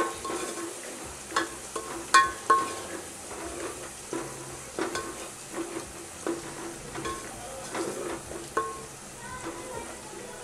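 Onions and ginger-garlic paste sizzling in hot oil in a metal pot, stirred with a spoon that scrapes and knocks against the pot about once a second. Each knock makes the pot ring briefly.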